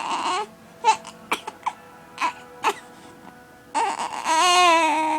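A six-week-old baby fussing in short, choppy cries broken by hiccups, then one longer wavering cry about four seconds in. Steady music tones play behind.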